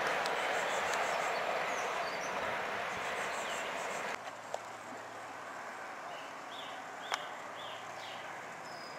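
First Great Western High Speed Train running away down the line, its rumble slowly fading, with birds chirping over it. About four seconds in the rumble cuts off suddenly, leaving quiet background with a faint low hum, a short run of bird chirps and a single sharp click.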